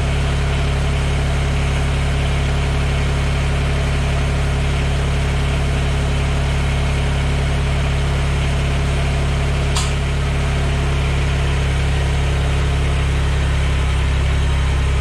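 Mahindra eMax 20S HST compact tractor's diesel engine running steadily, with one sharp click about ten seconds in.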